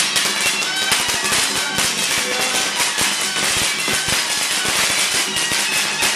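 Traditional Taiwanese Daoist ritual music: a high melody line over busy, dense percussion with many quick sharp strikes.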